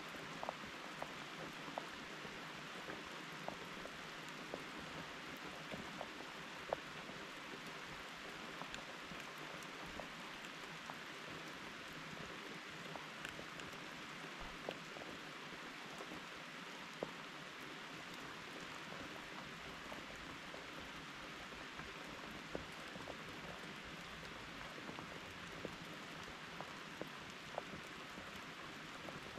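Steady rain falling, an even hiss with scattered sharp ticks of individual drops striking close by.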